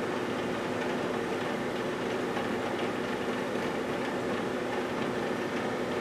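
GE Dual Wave microwave oven running: a steady hum with several level tones, unchanging throughout.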